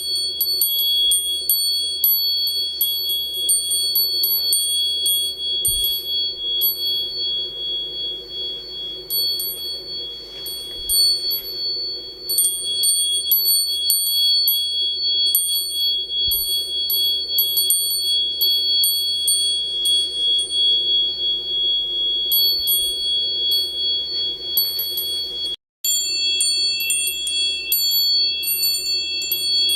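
Quartz-glass door chime ringing, its rods struck over and over in quick, uneven taps and holding two clear high tones. After a short break near the end, a third, lower tone joins in.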